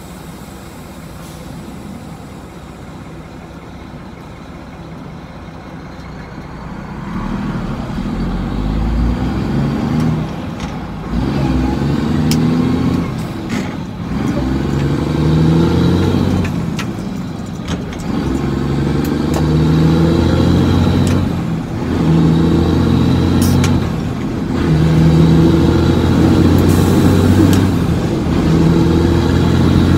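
Semi truck's diesel engine, heard inside the cab, running quietly for several seconds and then pulling hard as the driver upshifts through a manual transmission. The engine note climbs in each gear and drops away at each shift, roughly every three to four seconds.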